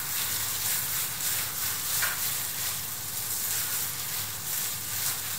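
Plastic-gloved hand kneading and squishing raw ground pork mixed with egg and chopped vegetables in a bowl, a steady, irregular wet squishing.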